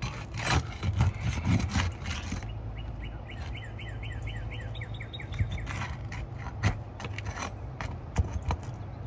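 Pry tool scraping and knocking against asphalt shingles as the rows are worked loose, with a cluster of scrapes and knocks at the start and a few sharp knocks in the second half. In the middle, a bird gives a rapid run of short, falling chirps for about three seconds.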